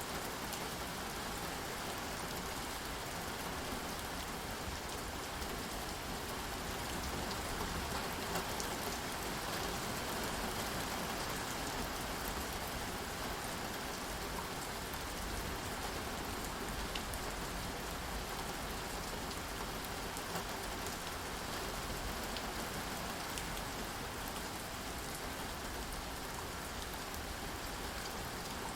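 Steady rain falling, an even hiss with scattered drop ticks, swelling slightly about a third of the way through.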